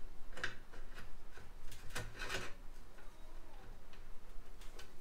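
Hand ratchet wrench clicking and metal tools clinking against a VW Beetle front axle beam as a bolt is worked on the upper side. Irregular clicks, with a cluster of louder ones about two seconds in.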